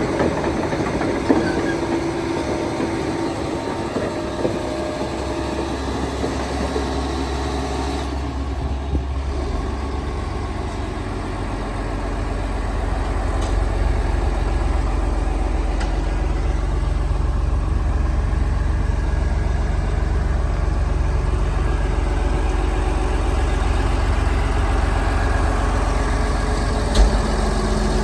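Liebherr PR756 crawler bulldozer: for the first several seconds, metallic clanking and a squealing whine over the diesel engine, then a steady low engine drone that grows louder about twelve seconds in and holds.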